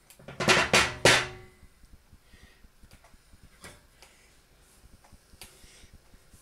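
A small black Express Chef electric cooker being turned over and set back down on a glass table top: a quick clatter of knocks about half a second in, followed by a few faint light clicks.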